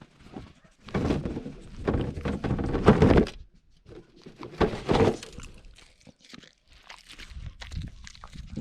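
A dog eating food rolls close to the microphone: loud chewing and mouth noises in two spells, one starting about a second in and a shorter one near the middle, then quieter scattered clicks of chewing.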